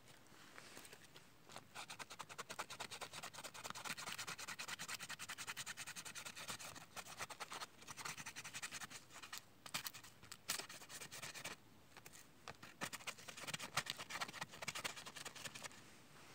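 Knife blade scraping birch bark into fine tinder shavings: quick, rapid scratching strokes in several runs, with short pauses between them.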